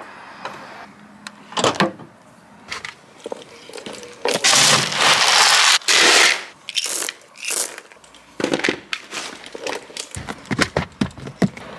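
Horse feed pellets poured from a plastic scoop into a plastic bucket: a loud rush about four seconds in, with a shorter pour just after, and scattered clicks and knocks before and after.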